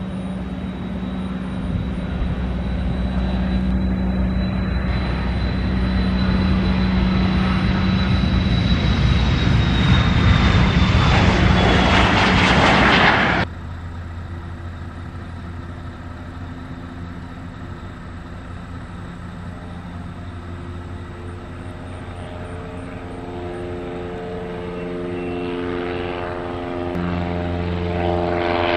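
Twin-engine business jet at takeoff power on the runway: a high engine whine that dips slightly in pitch over a swelling rush of jet noise. About halfway through it cuts off abruptly to a Cessna 172 single-engine propeller plane taking off, its steady engine drone growing louder as it climbs out overhead.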